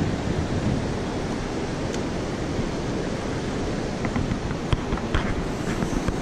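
Steady rush of ocean surf mixed with wind noise on the microphone, with a few light clicks in the second half.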